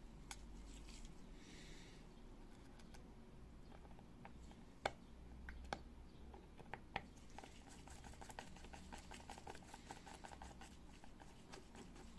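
Quiet handling of a 2.5-inch laptop hard drive, with a small screwdriver working at one of its cover screws: faint scratching and ticking, with three sharp clicks about five to seven seconds in.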